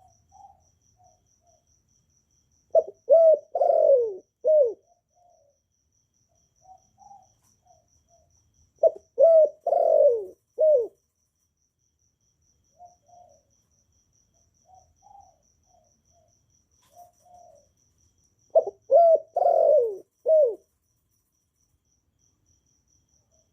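Spotted dove cooing: three loud phrases of four or five low coos each, a few seconds in, about nine seconds in and near the end, with soft short coos in between. A cricket chirps faintly and steadily in the background.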